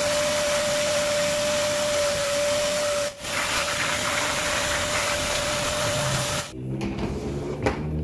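Fisch MB10LT wet-and-dry vacuum cleaner running: rushing air with a steady whine, briefly dropping out about three seconds in and going on without the whine. It cuts off about six and a half seconds in, and background music with a beat starts.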